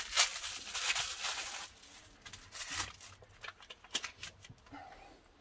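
Crinkly rustling of small plastic packaging and wiring parts being handled, densest in the first second and a half, then scattered light clicks and taps as the hands work among the cables by the battery.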